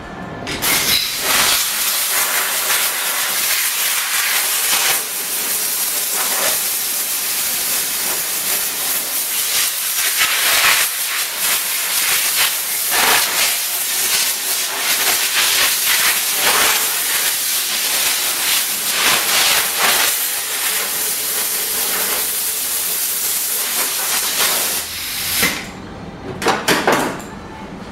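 Compressed air blowing in a loud, steady hiss for about 25 seconds, then a few short blasts near the end, as air is blown over a car bumper to clear dust before painting.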